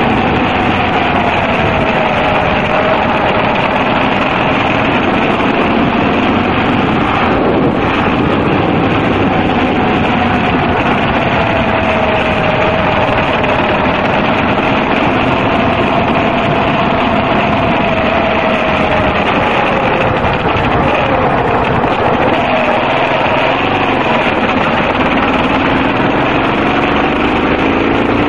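Yamaha XT250's single-cylinder four-stroke engine running at cruising speed, heard through a dense rush of wind and road noise. Its pitch holds fairly steady, dips about two-thirds of the way through and rises again near the end.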